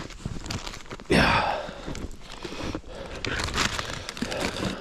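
A person moving in deep snow: footsteps crunching and clothing rustling close to a body-worn microphone, with a louder rush of noise about a second in.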